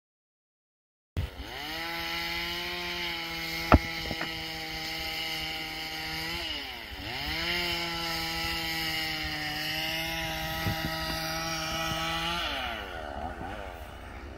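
Two-stroke chainsaw engine running at high revs. It starts abruptly about a second in, and its pitch sags and recovers twice. A single sharp knock comes about four seconds in.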